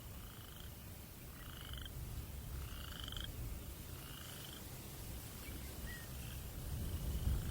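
A frog calling: short pulsed croaks repeated about once a second, over a low rumble of breeze that swells near the end.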